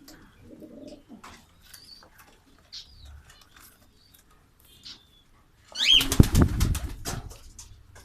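Pigeons cooing softly, with a few short high chirps. About six seconds in comes a loud burst of about two seconds with rapid strokes, wing flapping.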